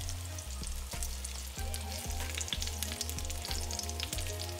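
Vegan meatballs sizzling and crackling as they fry in hot oil in an enamelled cast-iron pot while they are turned with tongs, over a steady low hum.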